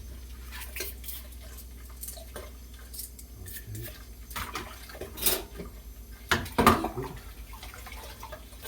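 Dishes being hand-washed at a kitchen sink: scattered clinks and knocks of dishes and pots with water dripping, the loudest clatter about five and six and a half seconds in.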